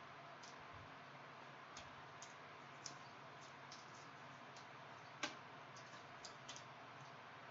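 Faint, scattered clicks and ticks of trading cards being handled and flipped through by hand, over a low steady hiss; the sharpest click comes about five seconds in.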